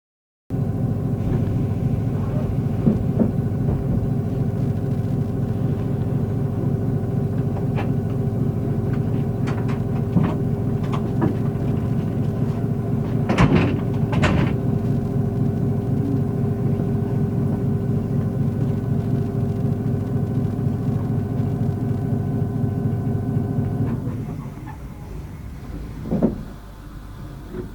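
Passenger train running, heard from inside the carriage: a steady rumble with a constant hum and a few sharp clicks around halfway. The rumble drops quieter a little before the end.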